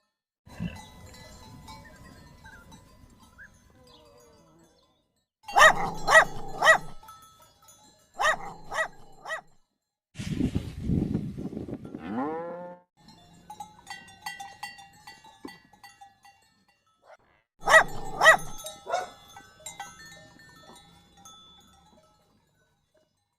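A string of short recorded animal sounds, mostly farm animal calls, each lasting a second or a few seconds with brief silences in between. One call about halfway through falls steeply in pitch.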